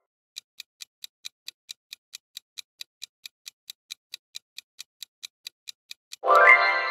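Clock-like ticking sound effect, about five ticks a second, a countdown timer for answering a quiz question. Near the end a louder sound effect with a rising pitch cuts in.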